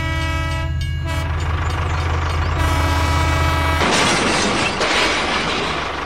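Train horn blowing twice over the low rumble of a train engine, the first blast ending about a second in and the second starting near the middle, followed by a loud burst of hissing noise.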